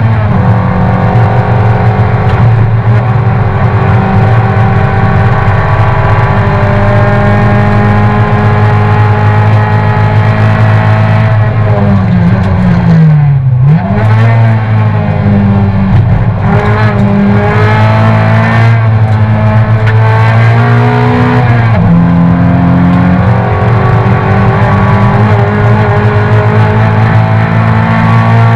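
Race car engine heard loud from inside the cabin, held at high revs. About halfway through its pitch falls steeply and then climbs back up, and it steps down again briefly later on before rising once more.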